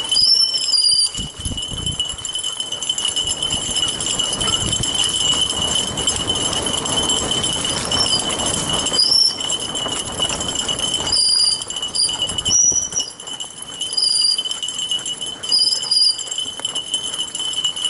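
Fat bike rolling over a dirt forest singletrack while three harnessed dogs run ahead on the towline, with a steady metallic jingling and short high chirps now and then.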